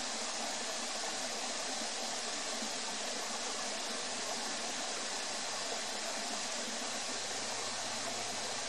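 Steady, even rushing of a nearby stream.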